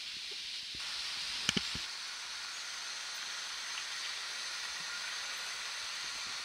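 Model electric train running along the layout's track with a steady rolling hiss, and two sharp clicks close together about a second and a half in.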